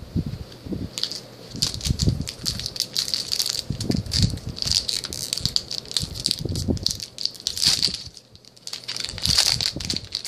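Shiny foil wrapper of a Duel Masters trading-card booster pack crinkling and crackling as it is handled and opened, in dense bursts with a brief lull about eight seconds in.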